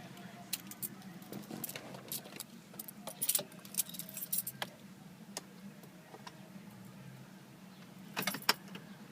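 Irregular light metallic clicks and jingles, like keys being handled, scattered through and bunched into a short flurry near the end, over a steady low hum.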